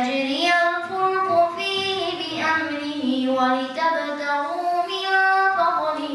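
A boy reciting a surah of the Qur'an in Arabic, chanted melodically into a handheld microphone. His voice runs in one continuous phrase, holding long notes and stepping up and down in pitch between them.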